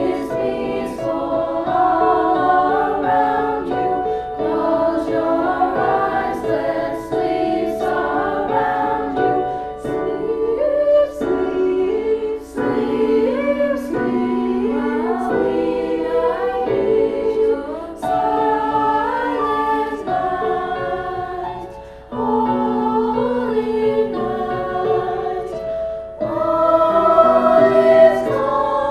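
Choir singing a slow song in sustained phrases, with brief breaths between phrases.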